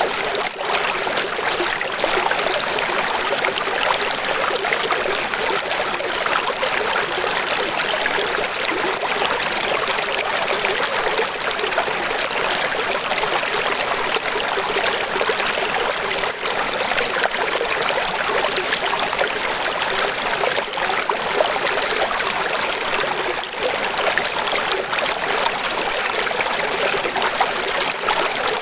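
Running water, a steady, even splashing hiss with little low rumble.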